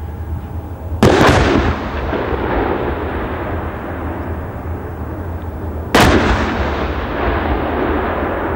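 Two heavy artillery blasts about five seconds apart, each a sudden crack followed by a long rolling rumble that dies away slowly.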